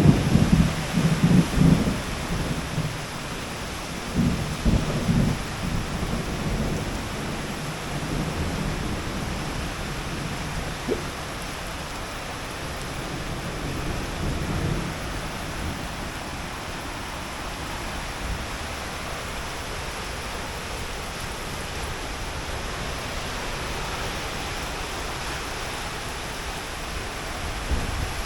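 Heavy rain pouring steadily in strong wind. Irregular low rumbles come and go over the first fifteen seconds or so, then the downpour runs on evenly.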